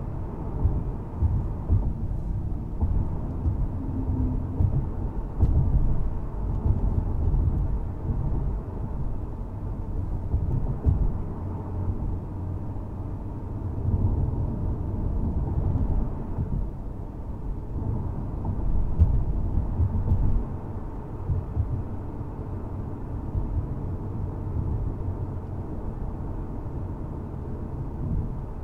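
A 2024 Volkswagen Golf R (Mk8) on the move: a low, uneven rumble of engine, tyre and wind noise.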